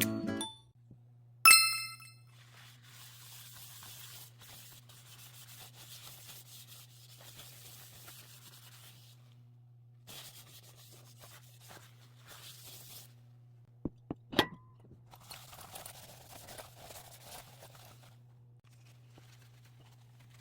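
Cookware being handled: a single bright metallic ding about a second and a half in, then stretches of light rubbing and rustling, with a few sharp knocks near the middle, over a steady low hum.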